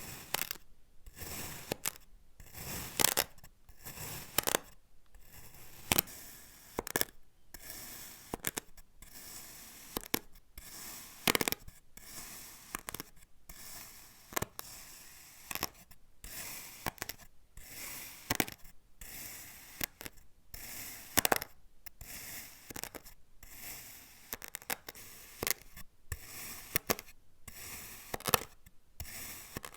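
Kinetic sand being cut: a run of short crunching, scraping strokes, irregular and roughly one a second, a few of them sharper and louder.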